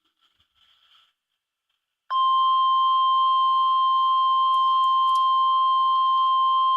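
NOAA Weather Radio 1050 Hz warning alert tone: a single loud, steady tone that starts abruptly about two seconds in after near silence and holds without a break. It signals that a warning broadcast is about to follow.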